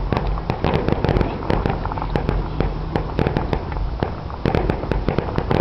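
Fireworks going off: many sharp pops and bangs in quick succession over a continuous low rumble.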